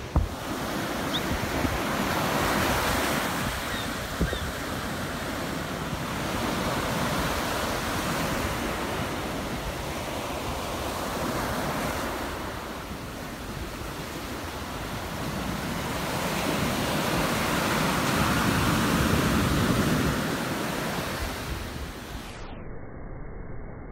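Pacific Ocean surf breaking and washing up the beach, the rush of water swelling and fading every few seconds.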